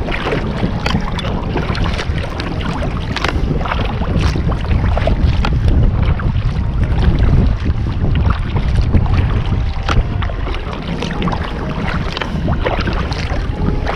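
Wind rumbling steadily on the microphone in a headwind of about 14 mph, with frequent short splashes of water from paddle strokes and chop around a kayak being paddled into the wind.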